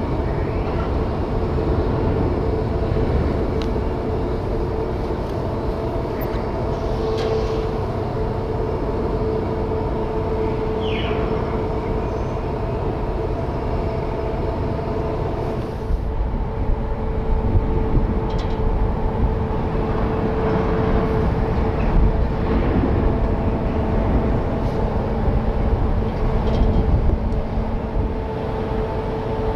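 Large ro-ro passenger ferry's machinery running as it eases in to its berth: a steady low rumble with a constant droning hum.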